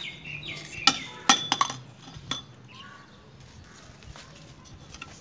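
A few sharp clicks and clinks of hard objects in quick succession, from about one second in to past the two-second mark, over a low background.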